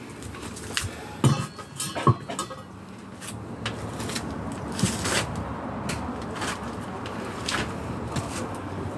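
Scattered knocks and clatter of tools and materials being handled, with two sharp knocks about a second and two seconds in; no power tool is running.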